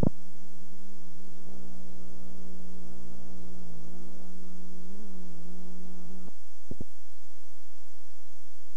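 Hum off the end of a VHS tape, its pitch wavering slightly, stops suddenly about six seconds in. A short click follows, then only a fainter steady hum as the tape player stops and shows its blue screen.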